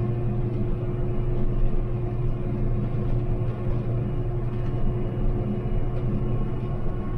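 Farm machine's diesel engine running at a steady speed, a constant drone with a low hum that does not change.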